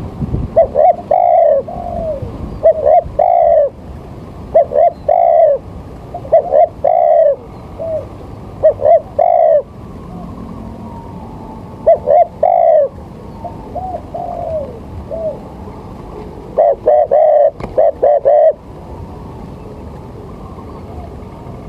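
A bird calling over and over in short runs of brief arched calls, with pauses of a couple of seconds between the runs. The calls stop for the last few seconds.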